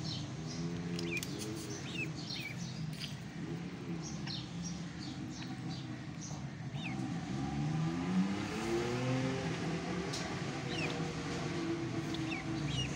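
Ducklings peeping: short, high, falling chirps scattered throughout. Under them a vehicle engine runs, its pitch rising as it revs about eight seconds in.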